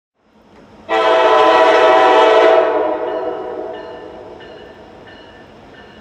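Diesel locomotive's multi-chime air horn sounding one long blast of a little under two seconds, then dying away with an echo.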